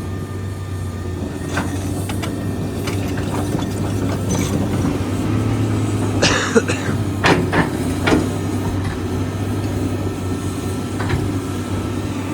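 Komatsu PC490LC-11 excavator's diesel engine running steadily under load as it digs and loads broken concrete. Scattered clanks and knocks from the bucket and concrete chunks come through, most of them about six to eight seconds in.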